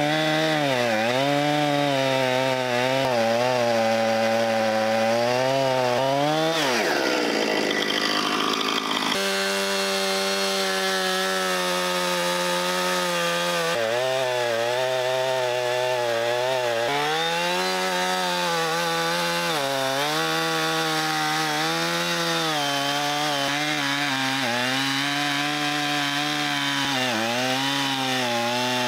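Two-stroke chainsaw cutting through a thick oak log, the engine note sagging under load and picking back up again and again as the chain bites.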